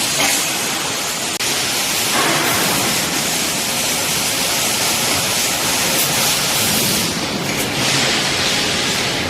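Automatic rebar bending machine running in a workshop: a loud, steady rushing machine noise, briefly dropping about a second and a half in.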